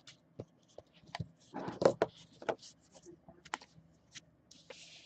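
Irregular light clicks and taps with a few short rustles, the sound of handling on a desk or tabletop.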